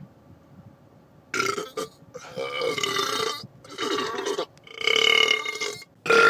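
A man belching loudly again and again: about a second in, a short burp, then four long drawn-out belches one after another, the last starting near the end.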